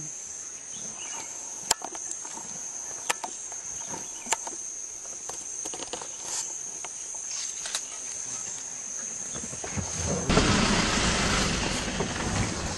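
Steady high-pitched drone of insects, broken by a few sharp scattered clicks. About ten seconds in, a loud even rushing noise starts suddenly and covers it.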